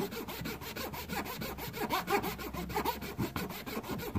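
Trimmer outliner blade slid back and forth in a 1 Minute Blade modifier, metal rubbing and rasping in many short, uneven strokes as the blade's edge is filed to a slight bevel.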